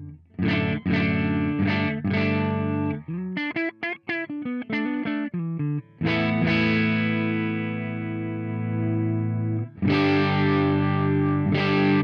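Overdriven electric guitar played through a TC Electronic JIMS 45 pedal, a Marshall JTM45-style amp emulator, recorded direct with no room sound. A handful of short chord stabs give way to a quick run of single notes, then a chord is left to ring for about four seconds before more stabs near the end.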